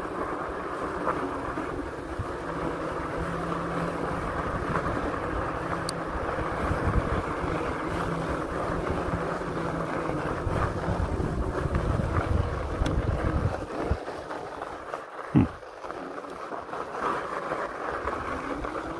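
Riding a Philodo fat-tyre electric bike over a dirt trail: wind rushing over the microphone, with a steady rumble from the tyres and ride. About fourteen seconds in the rumble drops away, and one thump follows shortly after.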